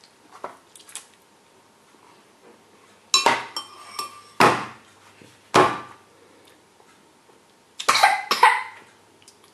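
A metal spoon clinks against a ceramic bowl about three seconds in, leaving a brief ringing. Two more sharp knocks follow about a second apart, and a short cluster of clattering comes near the end.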